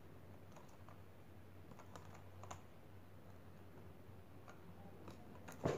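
Faint, scattered clicks and taps of hands working a camera tripod's pan head, tightening its adjustment knob, with one louder knock near the end.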